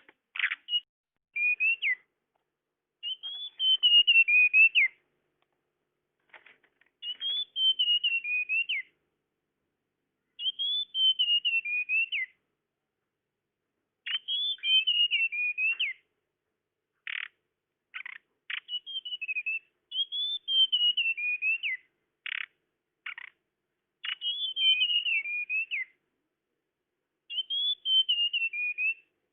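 Recorded call of a tledekan bird, played as a lure: high, thin whistled phrases of quick notes that step down in pitch, each lasting a second or two, repeated every few seconds with single sharp notes in between.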